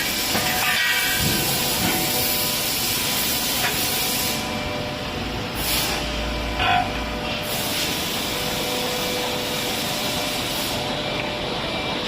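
Steady hissing and running noise of truck wheel rim production-line machinery, with a brief louder sound about seven seconds in.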